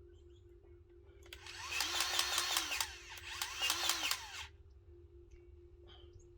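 Ryobi cordless grease gun running in two bursts of about a second and a half each, its motor-driven pump clicking rapidly as it forces grease into a backhoe zerk fitting.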